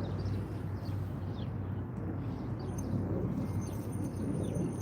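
Outdoor background of a steady low rumble, with short, high, falling bird chirps about once a second. A faint, thin, steady high whine comes in past the middle and fades near the end.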